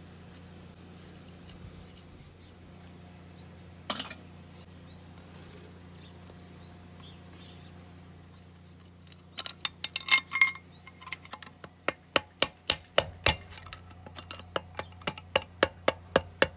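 A single metallic clink, then from about nine seconds in a clatter of metal parts followed by an even run of sharp ringing hammer taps on the lawnmower engine's metal parts, about three a second.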